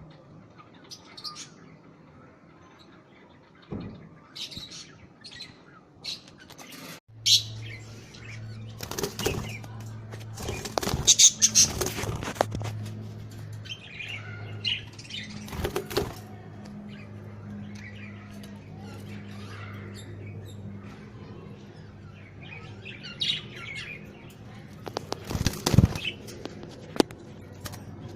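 Budgerigars in an aviary chirping in short high twitters, with bursts of wing flapping and clattering throughout. A low steady hum comes in about a quarter of the way through.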